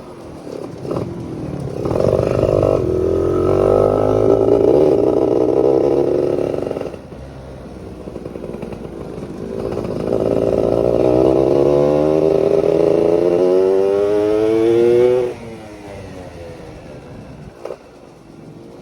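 Yamaha F1ZR's 110cc two-stroke engine, its carburetor set rich, revving hard twice for about five seconds each. The second time its pitch climbs steadily before dropping off sharply. Between the two pulls it runs lower and quieter.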